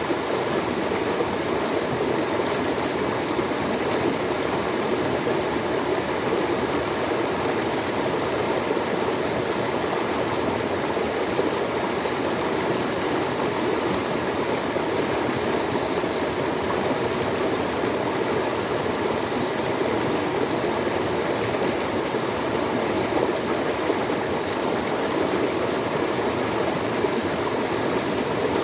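Flowing water rushing steadily and evenly, like a stream, without pause or change.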